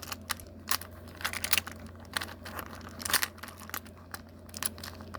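Small magnets snapping and clicking against each other in quick, irregular clicks as they are pieced together into a ball by hand.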